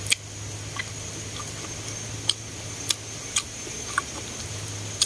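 Chopsticks clicking against a small bowl while stirring shrimp paste: about seven sharp, irregular clicks over a steady low hum.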